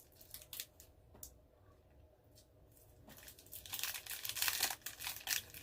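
Chocolate bar's plastic wrapper crinkling and rustling as it is handled, mostly in the second half, after a few faint clicks.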